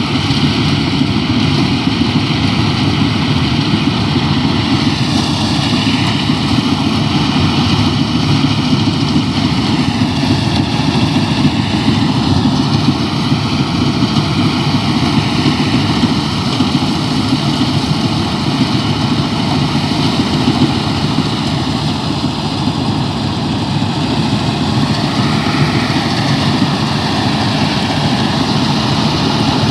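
Heavy engine of a rice-harvesting machine running steadily and loud, with no breaks or revs.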